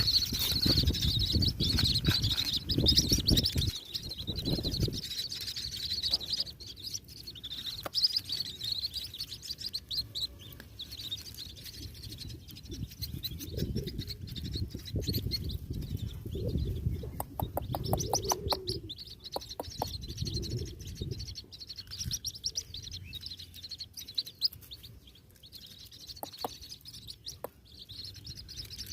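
White-breasted waterhen chick peeping in a near-continuous run of high chirps, with low rumbling thuds at times and a quick run of clicks past the middle.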